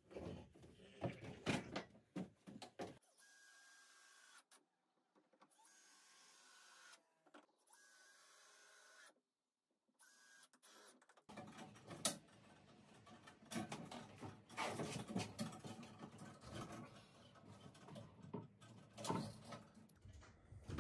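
Clatter and knocks of timber blocks being handled, then a cordless drill running in several short bursts as it drives screws into a wooden frame, then more clattering knocks with one sharp knock.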